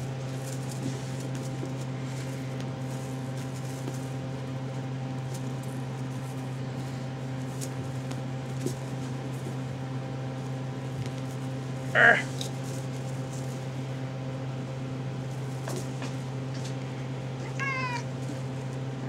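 RagaMuffin kittens mewing: one short, loud mew about two-thirds of the way through and a high, wavering mew near the end, over a steady low hum and a few faint clicks.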